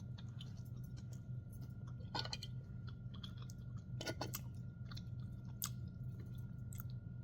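A person chewing a bite of cheese-stuffed chicken breast close to the microphone, with soft irregular mouth clicks and smacks. A steady low hum runs underneath.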